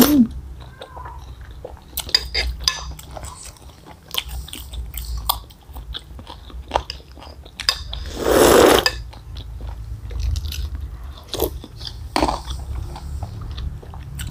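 Chewing and biting of bakso aci, chewy tapioca balls and meatballs in spicy broth, with many small mouth clicks. About eight seconds in comes one louder slurp of broth from a spoon, lasting about a second.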